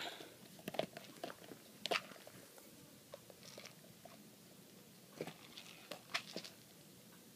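Scattered light clicks and taps of a baby's plastic snack cup being handled and knocked about, in a few small clusters with quiet between.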